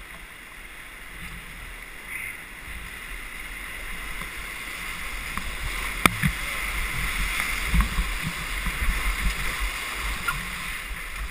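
Whitewater rapids rushing, growing steadily louder as a canoe runs into the big waves, with water splashing and buffeting against the canoe's bow and the microphone from about halfway in. A single sharp knock comes about six seconds in.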